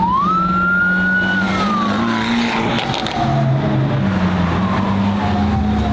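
A siren wailing: it climbs quickly in pitch about half a second in, then falls slowly. Under it is the steady drone of car engines in traffic.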